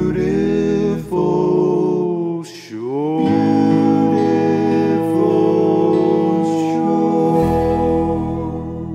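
Closing bars of a country gospel song: singers with a band hold the final chord, which fades out near the end.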